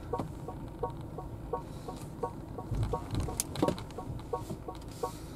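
Honda Freed+ turn-signal indicator sound, set to the Tone 2 setting: a steady rhythm of short, pitched tick-tock clicks, with a low cabin hum underneath.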